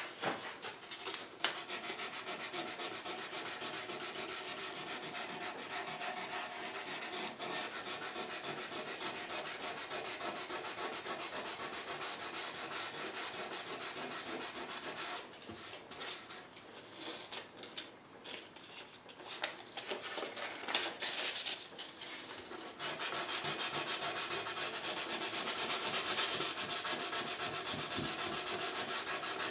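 Hand sanding along the edge of a wooden guitar body beside the binding, paper rubbing back and forth on the wood to clear a dark line left where masking tape stopped the sanding. The rubbing goes steadily, thins into broken lighter strokes about halfway through, then resumes louder for the last several seconds.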